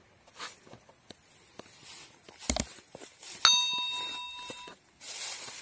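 Subscribe-button overlay sound effects: a few short clicks, then, about three and a half seconds in, a sudden bright bell-like ding that rings for just over a second. A faint steady hiss comes in near the end.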